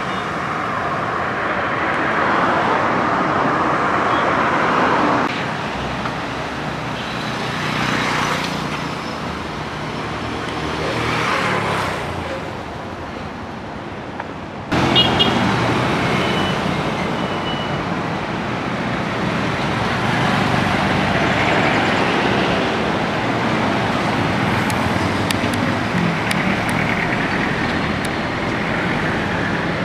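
Road traffic of cars and motorcycles, engine and tyre noise swelling and fading as vehicles pass. The sound changes abruptly about halfway through.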